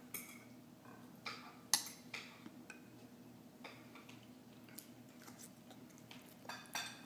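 Eating utensils clinking and scraping on a ceramic plate: a scattering of light taps, the sharpest about two seconds in and a few more close together near the end, over a faint steady hum.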